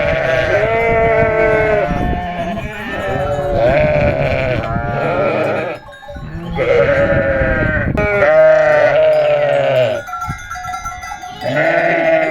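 A flock of sheep bleating, many calls overlapping in loud waves, with a short lull about halfway through and a quieter stretch near the end.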